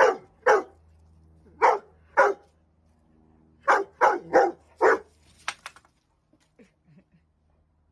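A dog barking, about eight short barks in loose pairs and clusters over the first five seconds, then falling quiet apart from a few faint clicks.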